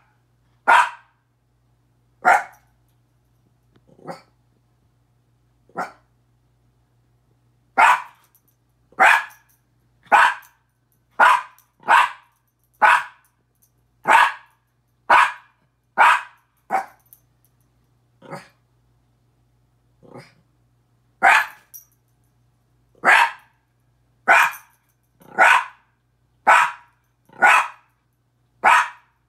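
Miniature pinscher barking at its own reflection in a mirror: short single barks, mostly about one a second, with a few quieter, more spaced-out barks in the first quarter and again around two-thirds through.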